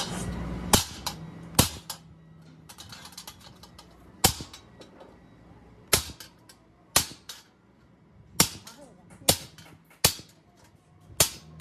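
A hammer striking steel about nine times at uneven intervals, each blow sharp with a brief metallic ring, over a faint steady hum.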